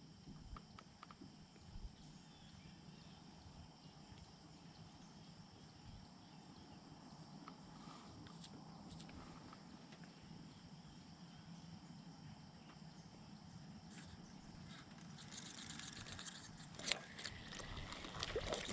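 Quiet outdoor ambience with a faint, steady insect chorus of thin high tones. Near the end comes a busy run of clicking and rattling with one sharp knock.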